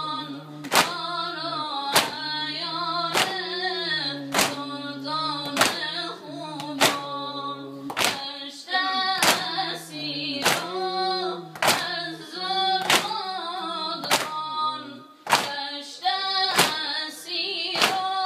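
A male reciter singing a Persian noha lament while a crowd of men strike their chests in unison, one heavy slap about every 1.2 seconds, keeping the beat of the chant.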